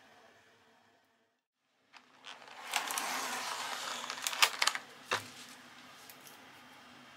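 Clear plastic clamshell egg carton being opened by hand, starting about two seconds in: crinkling plastic for about two seconds, then several sharp clicks as the snap tabs pop open, and one last click a moment later.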